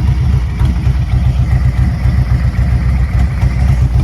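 Cammed Harley-Davidson Milwaukee-Eight 117 V-twin idling through an aftermarket exhaust, with a steady, pulsing low beat. It runs a Zippers 468 cam and a ThunderMax tune.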